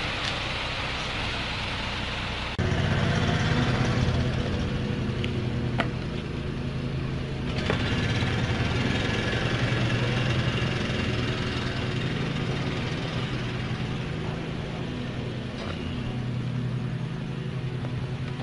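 Concrete mixer truck's diesel engine running, suddenly louder about two and a half seconds in, then staying steady.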